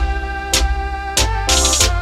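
Instrumental music on electronic keyboard: a sustained melody over a steady bass line with a regular drum-machine beat.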